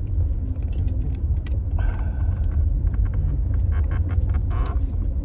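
A car moving along with a low, steady rumble, with scattered light clicks and knocks over it.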